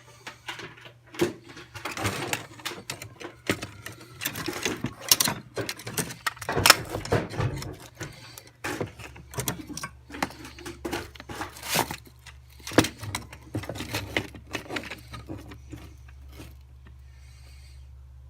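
Small fuel pump parts being handled and fitted together: irregular clicks, taps and rattles of plastic and metal pieces over a steady low hum. The clatter thins out near the end.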